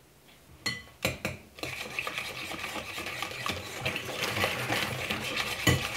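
Wire whisk beating a thick butter, honey and egg batter in a glass bowl: a couple of clinks about a second in, then a steady, rapid scraping and clicking of the wires against the glass.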